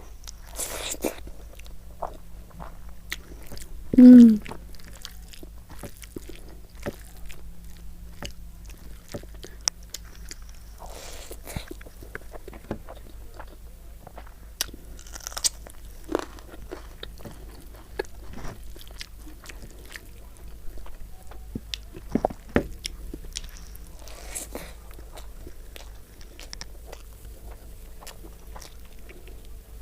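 Close-up eating sounds of rice and chicken curry: wet chewing and biting with crunches and many small mouth clicks, and a short hummed "mm" about four seconds in.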